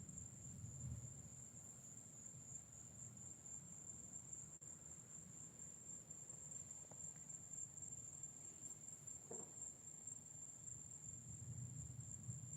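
Faint, steady high-pitched chorus of night crickets, unbroken throughout, over a low rumble.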